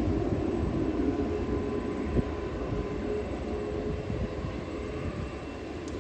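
Jet airliner's engine rumble, slowly fading as the plane moves away after passing low on its landing approach. A single sharp click about two seconds in.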